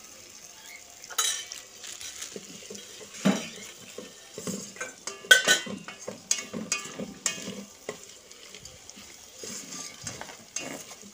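A plastic rice spoon scraping and clacking against the metal inner pot of an electric rice cooker as vegetables and soya chunks are stirred while frying in oil, over a faint sizzle. The strokes are irregular; the loudest clack comes a little past five seconds in.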